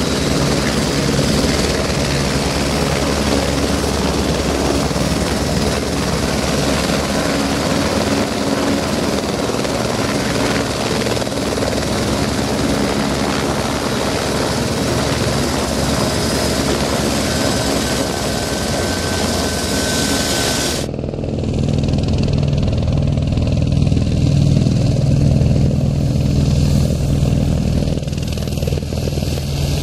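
Eurocopter AS355 F2 Ecureuil 2 twin-turbine helicopter running close by at a low hover, with turbine whine and rotor noise. About two-thirds of the way through the sound cuts abruptly to another AS355 flying over water, heard with much less hiss and a stronger low rotor beat.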